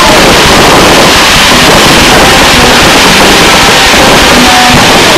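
Fireworks going off in a dense, continuous barrage of launches, bangs and crackle, very loud throughout, with music faintly underneath.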